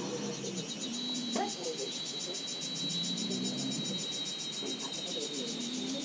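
An insect trilling: a fast, even, high-pitched pulsing trill with a steady high whine beneath it, starting just after the beginning and fading near the end. Faint voices murmur underneath.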